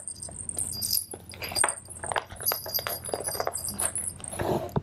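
Hands handling a handmade paper journal at its cover: rustling and small knocks, with a light metallic jingle.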